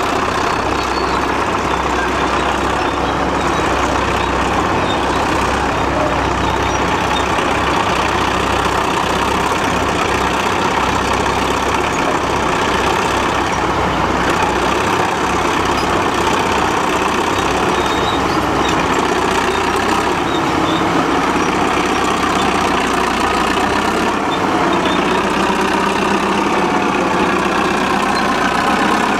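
Several vintage Caterpillar diesel crawler tractors running steadily under load, one towing a scraper and others pushing soil with their blades.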